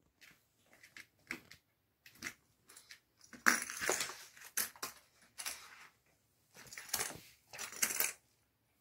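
A small red plastic spinning toy piece clattering and spinning on a hard floor as a small dog paws and noses at it. The sound comes as a series of short rattling bursts, loudest a little over three seconds in and again near the end.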